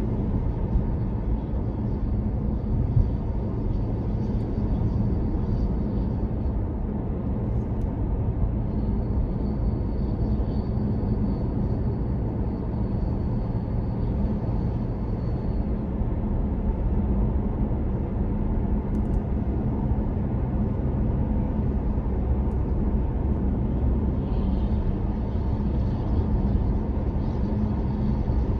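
Steady road and engine noise heard from inside a car's cabin at motorway speed: a low rumble of tyres and engine, with a faint high whine that comes and goes.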